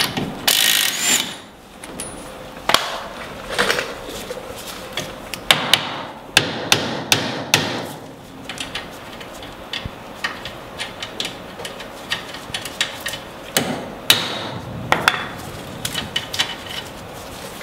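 A cordless impact wrench runs for about a second, spinning the 18 mm nut off the tie rod stud. A series of sharp, irregular metal knocks follows as the stock tie rod end is knocked loose from the steering knuckle of a Polaris RZR XP.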